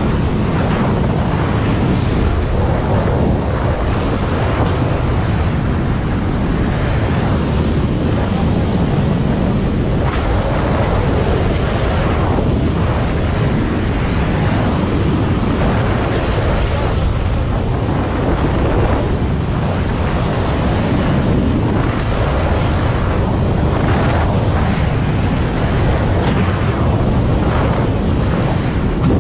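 Strong airflow rushing and buffeting over the microphone of a camera carried in fast flight, a loud, steady rumble that surges irregularly.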